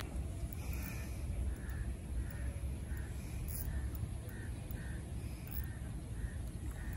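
A bird calling over and over: short calls of one pitch repeated about every half second to second, over a steady low rumble.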